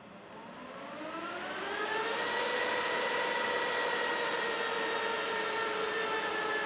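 Supermicro 2026T-6RFT+ server's cooling fans spinning up at power-on: a rising multi-toned whine that climbs for about two seconds and then levels off into a loud, steady whine over a rush of air.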